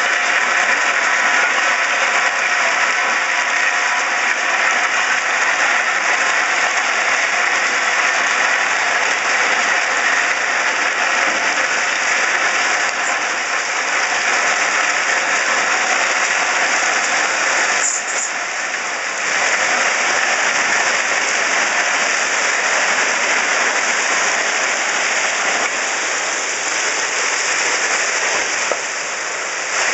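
Crushed-rock ballast rattling and scraping in a steady, rain-like rush as a railcar-mounted plow blade pushes and spreads it along the track. The sound dips briefly about two-thirds of the way through.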